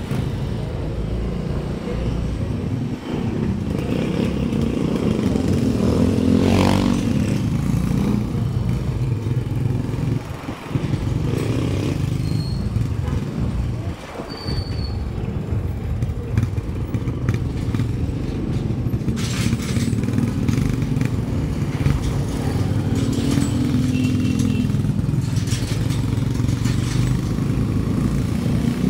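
Motorcycle engines running in light street traffic: the riding bike's own engine and road noise, with a motorcycle and cargo sidecar just ahead. Other bikes' engines pass close by, with brief rises in pitch about six seconds in and again a little past twenty seconds.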